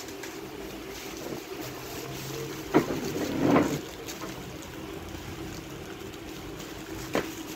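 Steady low hum of room noise with brief handling sounds: plastic-bagged speaker accessories being picked up and rustled, with a knock about three seconds in, a longer rustle just after it, and a short click near the end.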